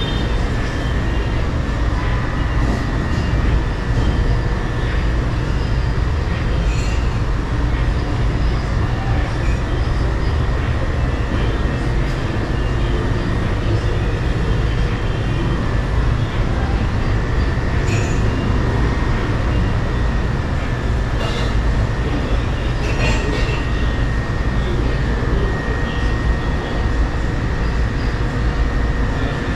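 A steady mechanical hum and low rumble with a faint high whine, as in a shop's room tone. A few faint clicks come through about a third and about two thirds of the way in.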